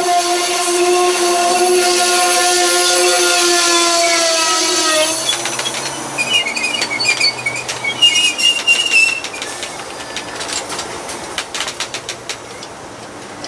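Locomotive horn held on one long chord that dips slightly in pitch and stops about five seconds in, followed by the squeal of wheels and a run of rail clicks as the train's cars roll past.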